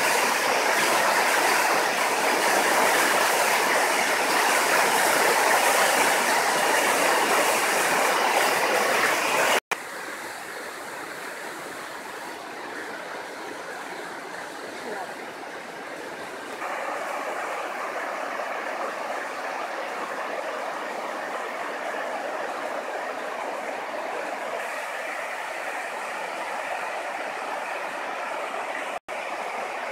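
Floodwater rushing: a swollen, muddy stream in spate after heavy rain, loud and steady. About ten seconds in it cuts to a quieter, more distant rush of water, which grows louder about halfway through; water is pouring over a river weir.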